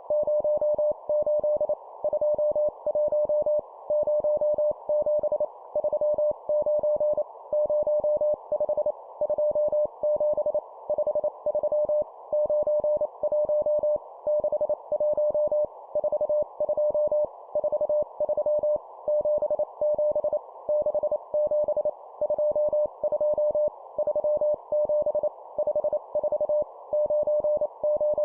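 Morse code (CW) practice tone, a single steady beep keyed on and off in rapid dots and dashes at 25 words per minute, sending short groups of numbers separated by brief pauses. A soft, narrow band of hiss sits behind the tone.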